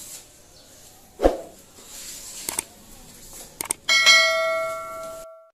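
A sharp knock, then a couple of short clicks and a bright bell chime that rings and fades for over a second before cutting off suddenly: a subscribe-button sound effect.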